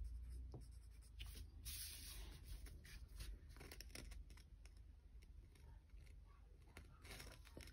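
Faint scratching of a pencil writing on a paper worksheet, with light rustles and taps as a plastic ruler is laid on the sheet, over a low hum.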